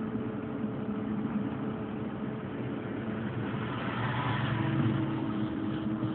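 Electric railcar running along the track, a steady hum and rolling noise heard from the cab. It gets a little louder about four seconds in, where a new steady tone joins.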